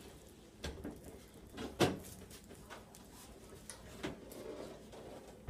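A few dull knocks and bumps, the loudest about two seconds in, as a plastic-wrapped over-the-range microwave is carried and pressed up against the wall under a cabinet.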